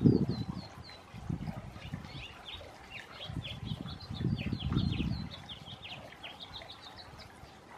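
Small birds chirping in quick series of short, high notes that drop in pitch. Irregular low rumbling bursts on the microphone are loudest at the start and again around four to five seconds in.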